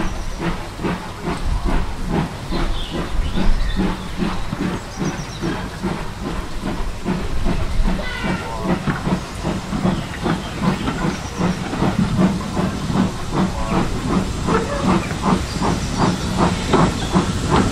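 BR Standard Class 2MT 2-6-0 steam locomotive 78022 working a train of coaches, its exhaust beating about two to three times a second, with steam hissing from beneath the carriages.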